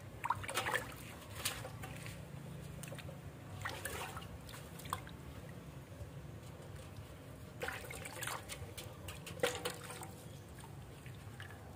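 Water splashing and dripping in a metal basin as hands scrub and rinse a wet puppy. It comes in short spells, about six times, over a steady low hum.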